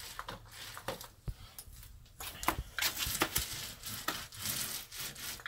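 A textured foam paint roller working thick epoxy paint: first rolled back and forth in a plastic roller tray, then rolled over a truck's door panel, a rough rubbing made of many small clicks and scrapes.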